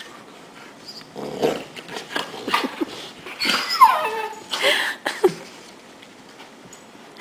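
Two dogs play-fighting, giving a run of short vocal cries between about one and five seconds in, with a longer cry that falls in pitch near the middle, over rustling from their scuffle.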